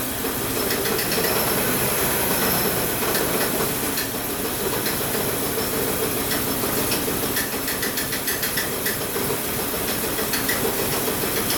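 Volvo 850 T5's turbocharged inline five-cylinder engine running steadily, heard from the open engine bay as an even drone with a hiss over it.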